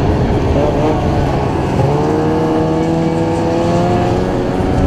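Ski-Doo snowmobile engine running under throttle while riding, with its pitch climbing about two seconds in as it speeds up, over steady track and wind rush.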